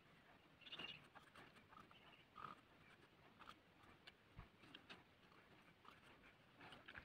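Near silence: faint room tone with scattered faint ticks and brief soft sounds.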